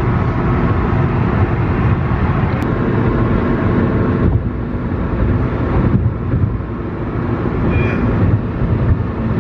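Steady low rumble of a moving vehicle, heard loud and close.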